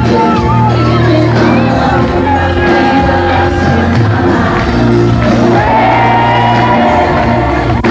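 Loud pop music with a singing voice, held and gliding notes over a steady bass.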